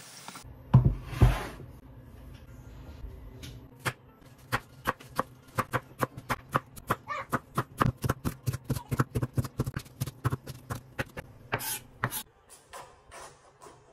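A kitchen knife chopping tomatoes on a wooden chopping board: a steady run of sharp knocks, about four a second, that stops near the end. Two heavy thumps come about a second in and are louder than the chopping.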